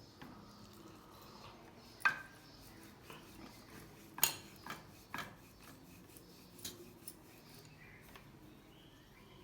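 A few scattered clinks and knocks of kitchen dishes and utensils, the loudest about four seconds in, over a quiet background.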